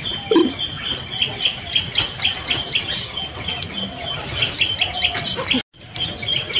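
Small birds chirping in quick repeated notes over a steady high insect drone. The sound breaks off for a moment near the end.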